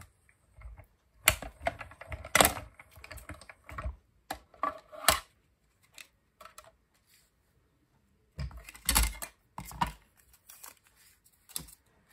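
Clear plastic cutting plates from a small hand-cranked die-cutting machine clicking and clattering as they are handled and separated. The taps come in two busy spells with a quieter stretch in between.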